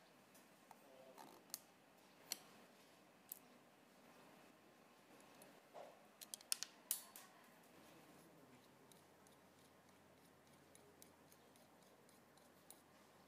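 Small, sharp metallic clicks as a brass pivot pin and washers are handled and seated on a straight razor's walnut scales: a few single clicks, then a quick cluster of clicks around the middle, with near quiet in between.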